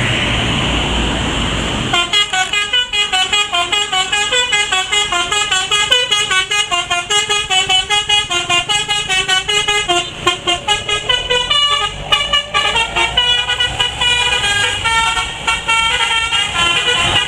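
A bus's telolet horn, the multi-tone musical horn of an Indonesian tour bus, playing a fast melody of short notes that step up and down, several a second. It starts about two seconds in, after a steady noisy rumble.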